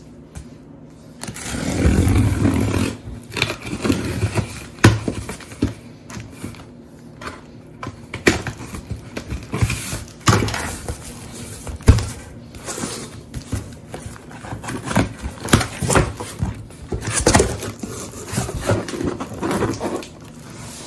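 Cardboard packaging being opened and handled: scraping and rustling, with irregular knocks and clicks as boxes and parts are moved.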